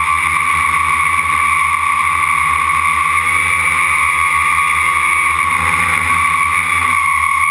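Quadcopter's four brushless motors and propellers running in flight, heard close up from the camera on the frame: a loud, steady high whine over a low hum.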